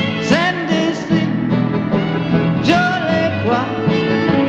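The film's title song: a country-style song with a solo singer over an instrumental backing.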